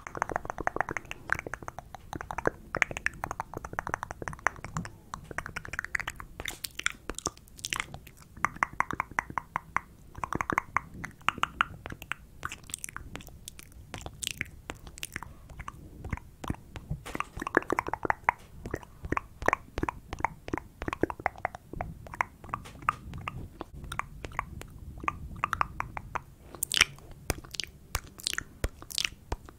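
ASMR mouth sounds made right at a microphone: wet lip smacks and tongue clicks, many per second, coming in quick clusters. Near the end the clicks turn sharper and crisper.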